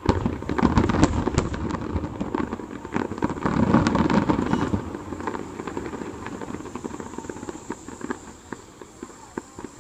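Distant fireworks finale: a dense barrage of aerial shell bursts and crackle, thinning after about five seconds to scattered single pops.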